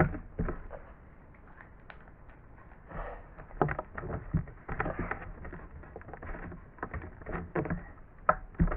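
Slime being kneaded and stretched by hand: irregular soft squelches and small wet clicks and pops, with a quiet stretch in the first few seconds.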